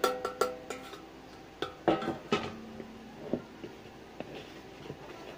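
Stainless steel mixing bowl knocked several times, clanking and ringing, as cocoa powder is tipped out of it. A second set of loud clanks comes about two seconds in, one note ringing on for a moment, followed by a few lighter taps.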